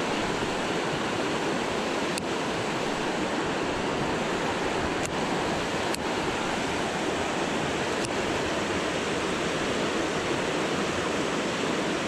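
Steady rush of a rocky river running fast through riffles, with a few faint clicks now and then.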